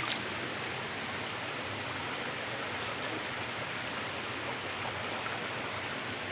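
Waterfall and creek water rushing steadily over rocks, an even, unbroken hiss.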